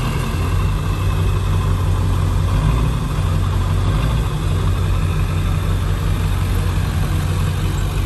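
Vehicle engine idling: a steady low hum with no revving.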